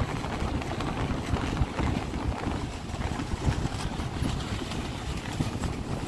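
Strong gusty wind blowing over the microphone, a low rumbling buffet that rises and falls, with surf breaking on the shore behind it.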